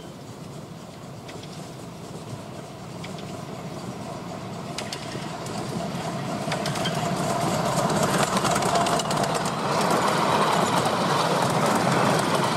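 Miniature 10¼-inch gauge steam train approaching and passing close by, its running sound growing steadily louder. From about five seconds in, its wheels click on the rails.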